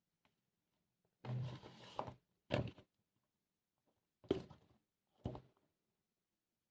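Vinyl record packaging being handled on a surface: a rustle about a second in, then three short soft knocks as the items are moved and set down.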